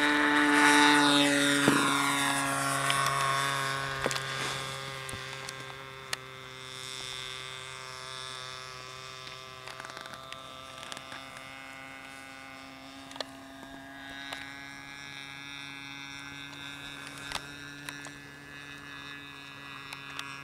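Radio-controlled model airplane's motor buzzing as the plane passes close after takeoff; its pitch drops as it goes by, loudest in the first few seconds. It then settles into a steady, fainter drone as the plane climbs away high overhead.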